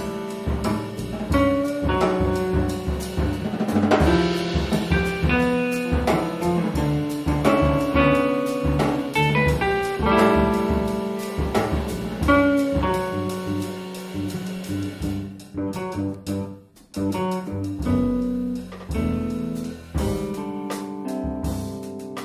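Live band of electric guitars and a drum kit playing an instrumental piece, with a brief drop-out about two-thirds of the way through before it picks up again.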